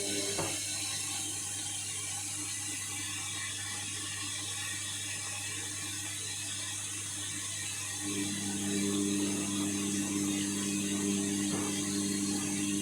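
Indesit washing machine's drum motor turning the wash drum in a rinse, over a steady low hum. The motor whine stops just after the start and starts again about eight seconds in, as the drum pauses and then turns again.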